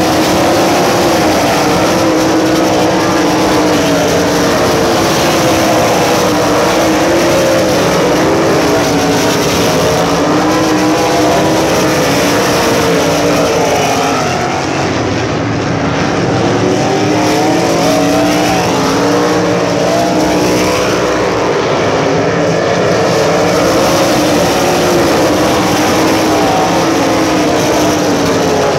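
A pack of USAC Silver Crown open-wheel race cars racing on a dirt oval: many engines at high revs together, their pitch rising and falling as the cars lap past. The sound is loud and continuous, easing slightly about halfway through, then building again.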